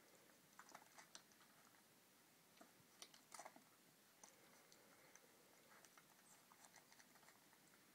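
Faint wet clicks and smacks of 16-day-old puppies suckling at their mother's teats, coming irregularly, with a short cluster about three seconds in.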